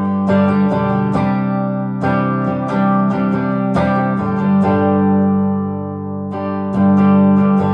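1968 Gibson SG Junior electric guitar with its single P90 pickup, played solo: notes and chords picked and left to ring. It goes a little softer about two-thirds of the way in, then a stronger picked chord comes in near the end.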